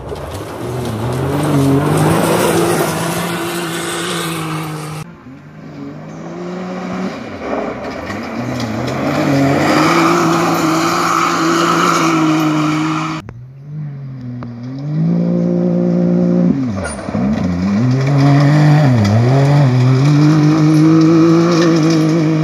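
UTV rally cars' engines racing past at full throttle on a gravel stage, the pitch holding high, then dropping and climbing again as they lift off and accelerate. Several passes cut together, each breaking off abruptly.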